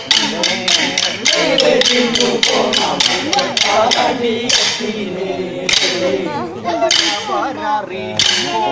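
Short wooden Kolkali sticks clacked together by dancers in rhythm, with men's voices singing the accompanying song. The clacks come quickly at first, then settle to about one strike a second in the second half.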